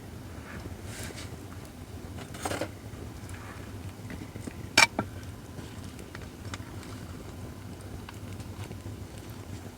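Acacia firewood burning in a fire pit: a steady low rumble with scattered faint crackles, a louder crackle about two and a half seconds in and one sharp pop just before five seconds.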